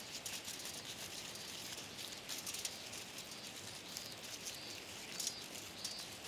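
Dry sunflower seeds being picked and rubbed out of a dried flower head: a light, steady patter of small clicks and rustling.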